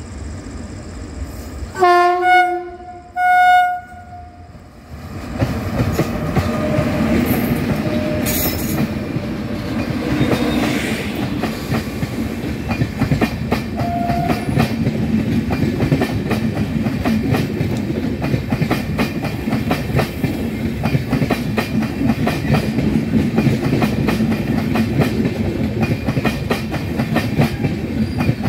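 WAP5 electric locomotive's air horn sounding two short blasts. The locomotive and its coaches then roll past close by with a steady rumble and rapid clicking of wheels over the rail joints.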